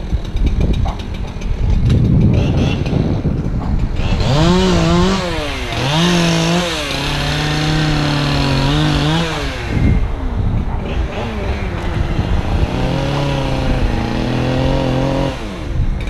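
Two-stroke chainsaw revved in several quick rising-and-falling blips, then held at steady high speed for a couple of seconds; it drops back and is held high again near the end.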